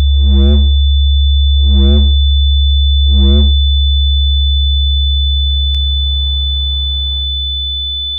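Electronic film-score drone: a loud, steady low hum with a thin high tone above it and a pitched pulse three times, about one and a half seconds apart. The pulses stop a few seconds in, the high tone cuts off about seven seconds in, and the drone fades away at the end.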